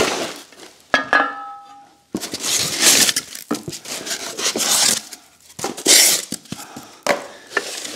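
A sheet-metal grinder shield set down on a concrete floor: one clank about a second in with a short metallic ring. Then rustling and crinkling of plastic wrap, foam and cardboard as hands dig through the packing box.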